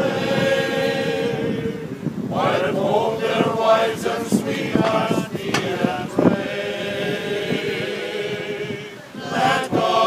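Male voice choir singing a cappella in long held chords, breaking briefly between phrases about two seconds in and again near the end.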